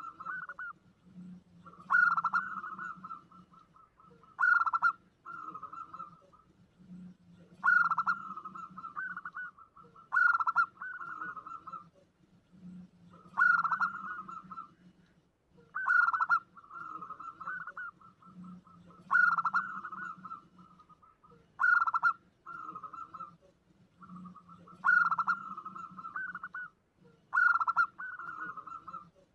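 Zebra dove (perkutut) cooing, used as a lure call: a phrase about every two and a half to three seconds, each a loud opening note followed by a quick stuttering run of softer notes.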